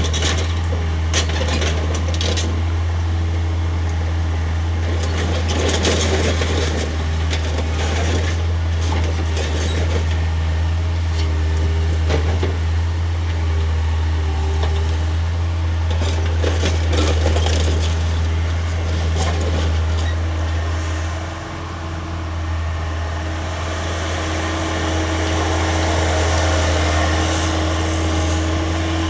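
Case 445 skid steer's diesel engine running steadily under load, with repeated knocks, cracks and clatter as the shed's structure is broken apart. About two-thirds of the way through the engine note drops briefly, then picks up with a higher whine.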